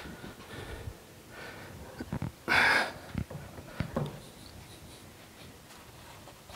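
Heavy gear box casting, hung from a shop hoist, being worked into a surface grinder's base: a few sharp knocks of metal on metal and one short, loud rush of noise about two and a half seconds in.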